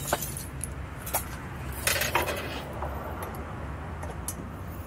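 Hand tools and small hardware being handled: a few scattered light metal clinks and taps, several close together about two seconds in, over a low steady hum.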